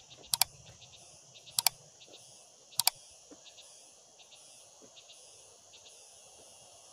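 Three sharp double mouse clicks about a second and a quarter apart, the click sound effect of a subscribe-button animation. Beneath them is a steady high chirring of crickets or other insects.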